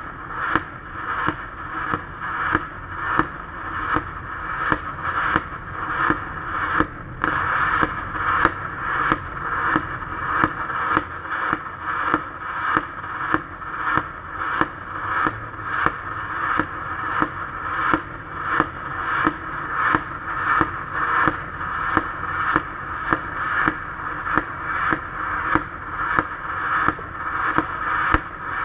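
MIG (gas metal arc) welding arc on steel in globular transfer, run at about 24 volts with short-circuit wire feed: a steady, noisy crackle that pulses in a regular rhythm, each surge building and then cutting off sharply, somewhat under two times a second.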